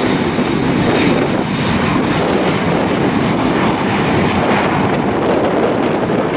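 Boeing 737 jet engines running steadily as the airliner rolls along the runway, heard as a loud, even rush of engine noise.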